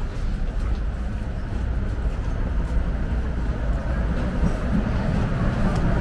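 Street traffic rumble, a low steady sound that grows gradually louder toward the end.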